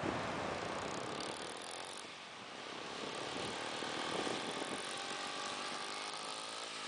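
Small motorcycle engine running, its pitch rising near the end as it revs, over a steady hiss of surf and wind.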